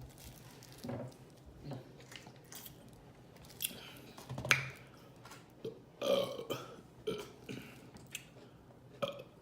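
A woman burping several times, short belches a second or two apart, the loudest about four to six seconds in, with short mouth clicks between them.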